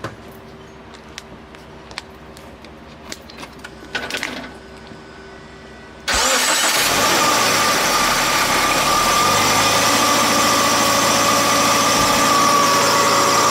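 A Subaru BRZ's flat-four engine, just fitted with a supercharger, idling steadily on its first startup after a base-map ECU flash. There is a steady whine over it. The engine sound comes in suddenly about six seconds in, after a few seconds of small clicks.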